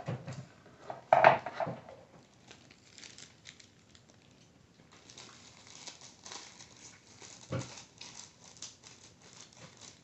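Plastic snack wrappers crinkling as they are handled and opened, most of it from about halfway through, with a soft thump. A short, louder sound about a second in.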